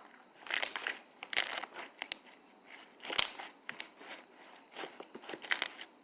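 Slime being kneaded and squeezed by hand, giving off irregular bursts of wet clicks, crackles and small pops. It is the slime's clicky sound after lotion and activator have been worked in.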